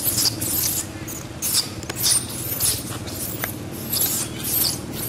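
Rapid high-pitched squeaks and chirps, several a second, some rising and falling in pitch, over a steady low hum.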